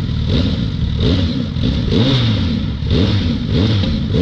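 Suzuki Hayabusa's inline-four engine revved in a series of quick throttle blips through its stock exhaust, each rising and falling back toward idle, about half a dozen in a row.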